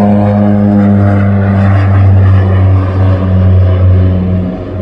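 OV-10 Bronco's twin turboprop engines and propellers giving a loud, steady low drone as it flies past, the pitch easing down slightly partway through as it passes and banks away.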